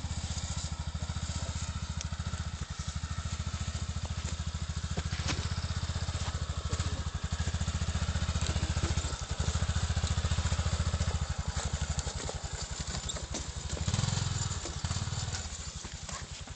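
Honda Rincon ATV's single-cylinder four-stroke engine running under load as the quad climbs a steep slope, a steady low pulse that gets louder around the middle and again briefly near the end.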